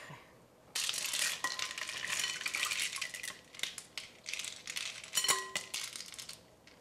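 Spoon stirring and scraping through shrimp in a bowl: a run of wet scraping with small clicks against the bowl, starting just under a second in, with one sharper clack about five seconds in.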